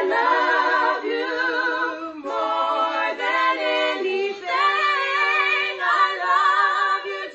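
Three women singing a worship song a cappella, holding long notes with a wavering vibrato and pausing briefly for breath between phrases.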